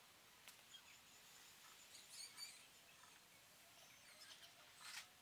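Near silence: faint room tone with a few faint, short, high-pitched clicks and chirps, the strongest about two seconds in and near the end.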